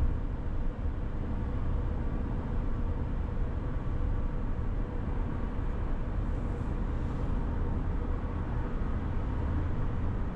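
Steady low rumble of tyre and engine noise from a car cruising at freeway speed.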